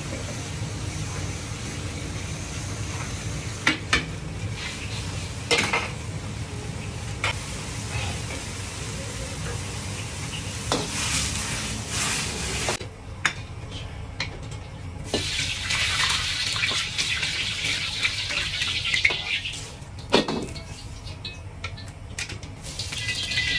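Gas wok burner running with a steady low rush under a carbon-steel wok of hot liquid, with a few sharp metal knocks of the wok against the stove. Loud sizzling hisses around 11–12 seconds and again from about 15 to 19 seconds as the steaming liquid is swirled and tipped out and the hot wok is left wet.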